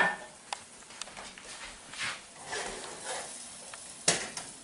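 A metal saucepan and kitchen utensils being handled on an electric coil stove: a few light clicks and knocks over a faint hiss, then a sharp metallic clank about four seconds in.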